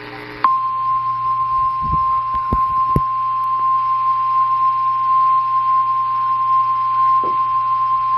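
NOAA Weather Radio 1050 Hz warning alarm tone: one steady, loud, high tone that starts about half a second in and holds without a break. It signals that a warning broadcast is about to follow. Radio hum and static sit under it, with a few low thumps around two to three seconds in.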